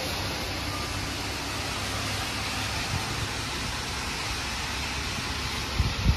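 Steady hiss of rain and car tyres on a wet road below, over a low traffic rumble. A few low thumps come near the end.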